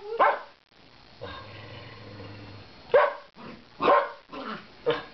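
Shetland sheepdog giving a series of sharp barks: one just after the start, then a pause, then four more in quick succession near the end.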